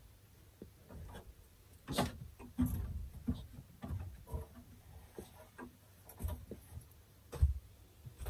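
Hands handling things: scattered light knocks and rustling, with one sharper knock near the end.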